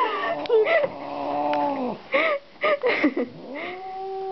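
Angry domestic cat growling in long, drawn-out yowls that slowly fall in pitch, broken by short hisses: the warning sounds of a hostile, upset cat.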